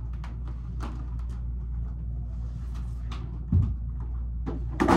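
Scattered light clicks and knocks over a steady low hum, with a dull thump about three and a half seconds in and a louder knock near the end.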